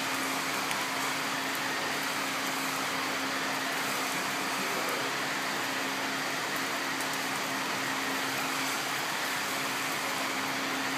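Steady machine hum: one constant low tone under an even whooshing noise, unchanging throughout.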